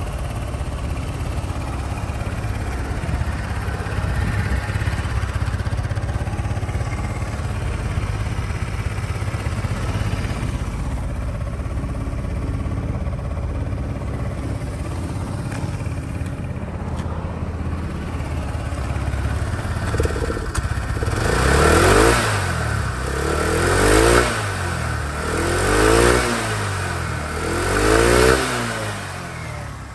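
SYM Attila 125 scooter's air-cooled four-stroke single-cylinder engine idling steadily, then revved four times about two seconds apart near the end, each rev rising and falling in pitch.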